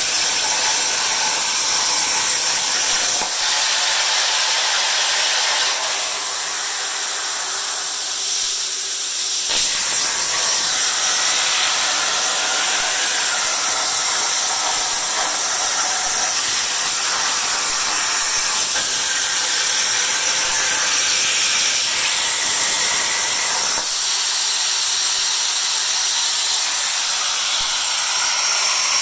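CNC plasma cutter torch cutting steel plate: a loud, steady hiss of the plasma arc and its air jet, starting abruptly as the arc strikes. The lower part of the sound shifts a few times as the torch moves along the cut.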